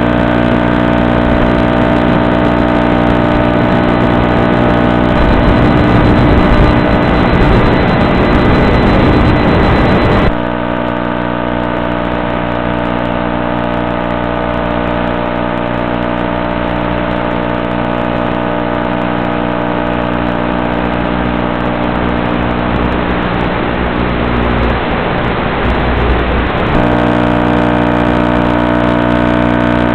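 The RC plane's electric motor and propeller are droning steadily at constant throttle, a dense hum made of many fixed pitched tones. The sound drops a little and turns duller about ten seconds in, then brightens again near the end.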